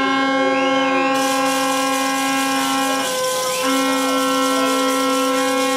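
Two long, steady horn blasts on one unchanging pitch, each about three seconds long with a short break between them.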